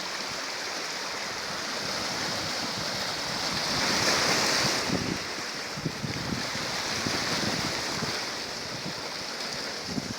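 Sea waves washing, a steady rushing hiss that swells about four seconds in, with low wind thumps on the microphone.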